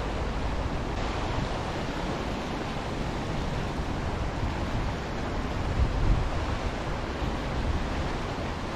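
Flooded chalk stream rushing and churning white over a drop, a steady even rush of water. A brief low bump about six seconds in.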